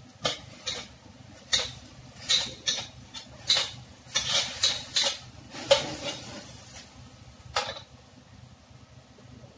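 Metal spatula scraping and clanking against a wok as food is stir-fried, a dozen or so irregular strokes that stop near the end.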